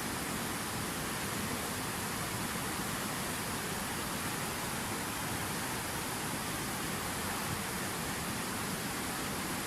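Water of a fountain waterfall falling and splashing in a steady, even rush with no breaks.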